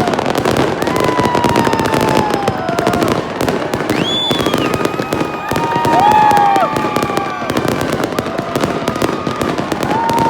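Fireworks display with continuous dense crackling and popping. Several whistling fireworks sound over it, each holding a tone and then sliding down in pitch, and one shoots sharply up in pitch about four seconds in.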